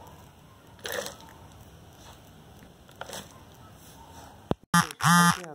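Potting soil being poured into a plastic pot, with soft rustles about one and three seconds in. Near the end comes a short, loud pitched cry, the loudest sound.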